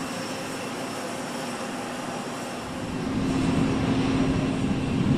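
Small electric propeller airplane flying, a steady drone that grows louder about three seconds in.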